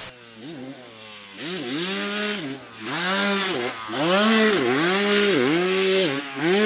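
Motocross bike engine with the throttle repeatedly opened and chopped. Its pitch climbs, holds and drops about once a second. Fainter for the first second and a half, then loud.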